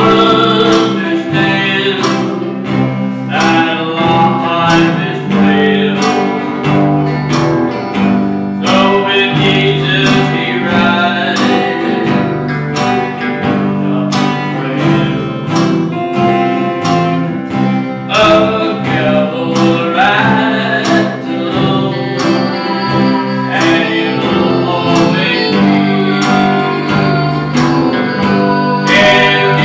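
Live country gospel band playing: guitars, fiddle and drum kit keeping a steady beat, with a man singing.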